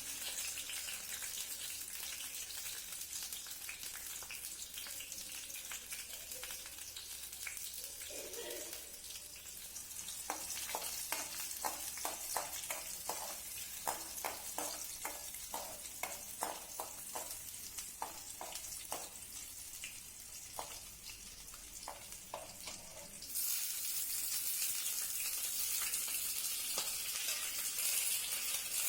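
Food frying and sizzling in oil in a pan while it is stirred, with a run of repeated knocks of the utensil against the pan. Late on, the sizzle suddenly gets louder.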